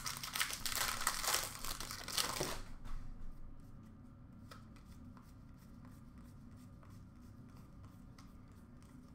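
Hockey trading cards being handled and sorted: rustling and flicking for about the first two and a half seconds, then only faint scattered clicks as cards are set down.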